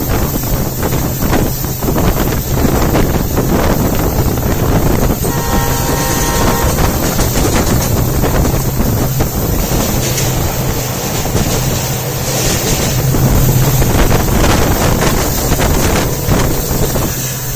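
EMD WDP4D diesel locomotive's two-stroke engine humming steadily as the train runs, with wind buffeting the microphone. About five seconds in, a horn sounds briefly for about a second and a half.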